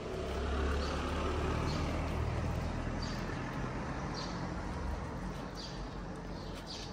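A motor vehicle passing on the street: a low rumble that swells in the first second and fades away over the next few seconds. Short high chirps repeat about once a second throughout.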